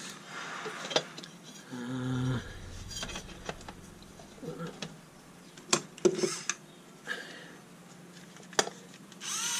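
Clicks, knocks and light clatter of hand tools and metal parts being handled on a table while swapping screwdriver bits and drivers, with a brief low hum of about half a second roughly two seconds in.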